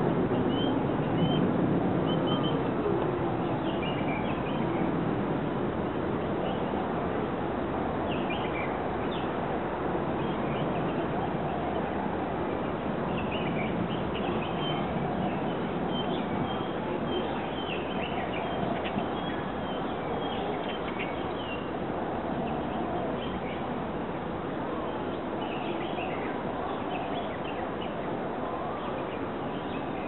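Parakeets calling: many short, high calls, some in quick runs and more frequent after the first few seconds, over a steady background hiss.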